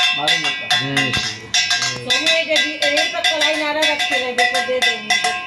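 A metal puja hand bell rung rapidly and continuously, its clapper striking several times a second so the ringing tones hang on between strokes, with a voice singing along underneath. The ringing stops abruptly near the end.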